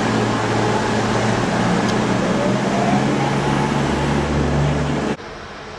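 Class 331 electric multiple unit pulling into the platform: a loud steady rush of noise over a low electrical hum, with a faint whine rising in pitch about halfway through. The sound drops off suddenly near the end.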